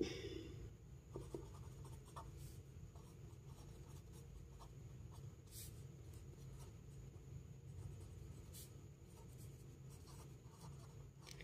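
Pen writing on lined notebook paper: faint, scattered scratches and ticks of the nib as words are written by hand, over a low steady hum.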